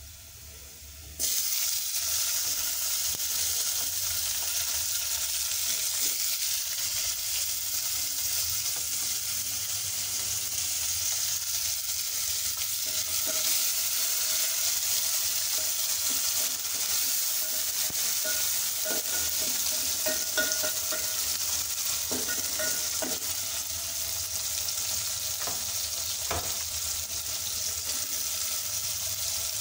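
Chopped tomatoes tipped into hot oil and fried onions in an aluminium pot: a sudden loud sizzle starts about a second in and carries on steadily, with a few taps and scrapes of a wooden spoon stirring.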